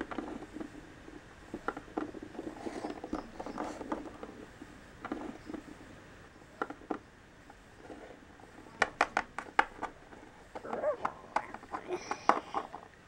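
Plastic Littlest Pet Shop figurines being handled and set down on a table: light taps and clicks, with a quick run of sharper clicks about nine seconds in.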